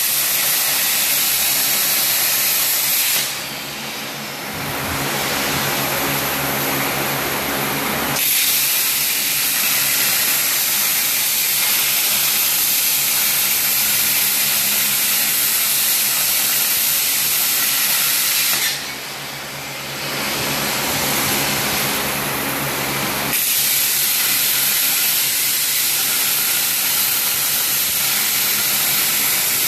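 CNC machine running with a loud steady hiss over a faint hum. Twice the hiss eases off for about five seconds while a lower hum comes forward, then it returns.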